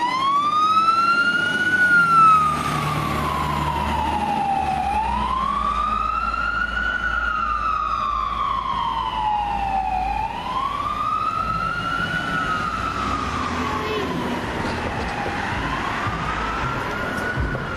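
Fire truck siren in wail mode, rising and falling in pitch in slow cycles about every five seconds. The low rumble of the truck's engine is heard under it during roughly the first ten seconds as it passes.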